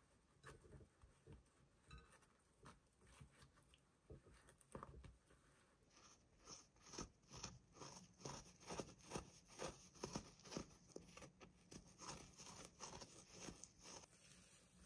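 Soft, wet crackling and scrunching as fingers pull apart the soaked, matted fur of a Scruff-a-Luvs surprise plush. Scattered crackles at first, turning into a dense run of rapid crackles about six seconds in.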